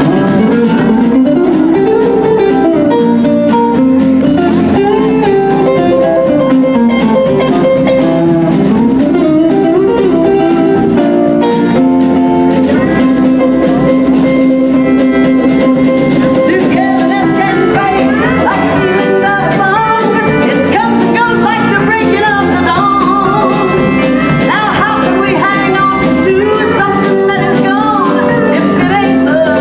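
Live country band playing an instrumental break, with an electric guitar playing the lead lines over the band; the melody climbs higher about halfway through.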